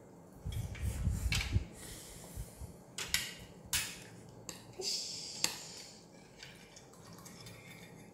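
Metal spoons and forks clinking and scraping against plates and bowls during a meal, with several sharp clinks in the middle. A few low thuds come in the first couple of seconds.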